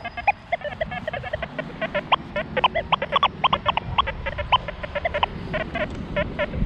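XP Deus 2 metal detector giving a rapid chatter of short beeps at varying pitches as the coil sweeps over ground thick with iron nails: a machine-gun run of iron signals.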